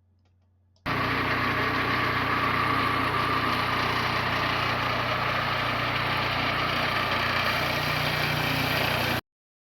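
Engine of a Turbosawmill M8 circular sawmill running steadily at a constant speed. It starts abruptly about a second in and cuts off suddenly near the end.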